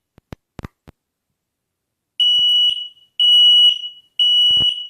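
Combination smoke and carbon monoxide alarm being tested: a few faint clicks, then three loud, high-pitched beeps about a second apart, the three-beep fire-alarm pattern.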